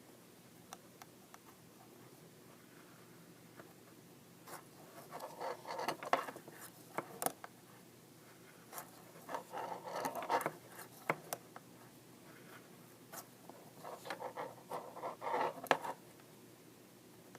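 Knitting needles working yarn: soft rubbing and small clicks of needles and yarn, in three bouts of a few seconds each with quieter pauses between.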